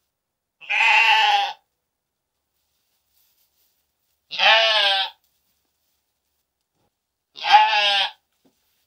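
A horned ewe bleating three times, each a quavering call of about a second, spaced a few seconds apart.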